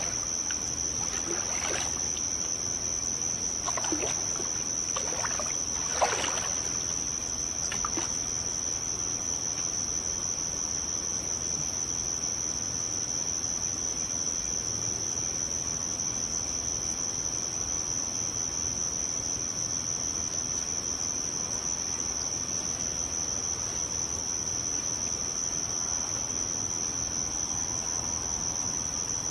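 Steady high-pitched insect drone, with water sloshing and splashing a few times in the first eight seconds.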